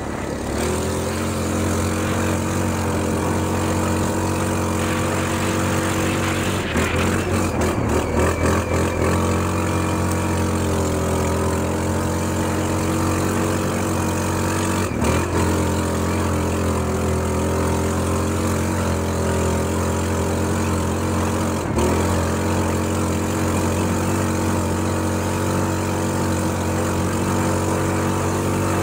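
ATV engine idling steadily, its note briefly unsettled around seven to nine seconds in, with two short knocks later on.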